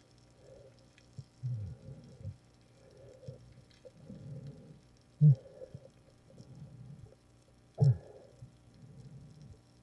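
Muffled underwater sound picked up through a camera's waterproof housing: irregular low rumbles and thuds from the diver's movements in the water, with two sharper knocks about five and eight seconds in.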